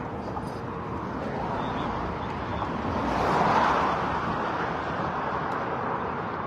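Outdoor road traffic, with one vehicle passing that swells and fades about halfway through.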